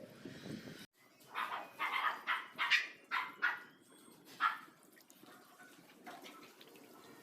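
A dog barking: a quick run of sharp barks, then one more a second later.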